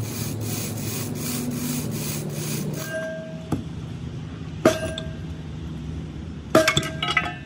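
Metal being worked by hand in a repair shop. For about the first three seconds there are rhythmic scraping strokes, about three or four a second. Then come several sharp, ringing metal clinks, the loudest cluster near the end, all over a low steady hum.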